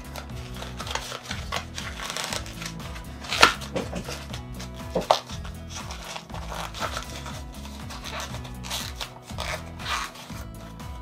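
Vegetable-tanned leather of a small wallet rubbing as it is squeezed and flexed in the hands, with two sharp clicks about three and a half and five seconds in, over background music.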